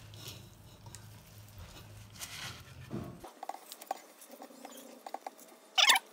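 A metal spoon scooping soaked glutinous rice out of a metal colander and tipping it into a bamboo tube: faint patter and small clicks of grains and spoon, with a short, louder scrape near the end.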